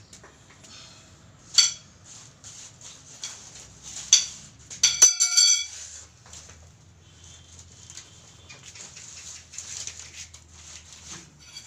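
Metal rods clinking and tapping on a concrete floor: scattered sharp taps with a brief metallic ring, the loudest about a second and a half in and a quick cluster around four to five and a half seconds in.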